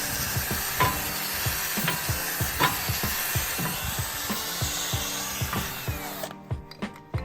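Background music with a steady beat, over a loud hissing noise that cuts off suddenly about six seconds in.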